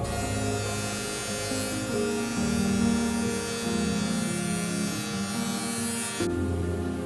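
Background music with a steady, buzzing whir from a small electric motor, which cuts off abruptly near the end.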